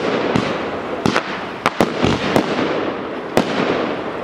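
Fireworks display: about nine sharp bangs of bursting shells at irregular intervals, some in quick pairs, over a continuous rushing, crackling noise.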